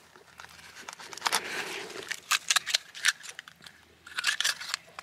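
Raw oyster being shucked with a knife: irregular sharp clicks and scrapes of the blade prying at the shell.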